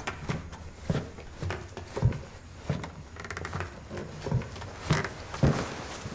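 Film sound-design foley: a run of soft, regular knocks, about two a second.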